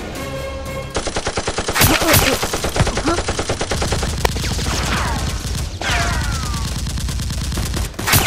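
Dubbed-in automatic gunfire sound effects: rapid machine-gun bursts starting about a second in, with louder bangs around two seconds in and just before the end, and falling whistles around five and six seconds in.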